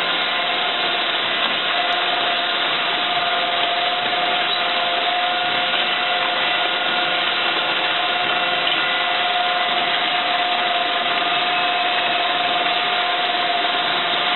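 Amfec 510 paddle mixer running, its paddles churning birdseed during unloading: a steady, even hiss with a faint steady whine through it.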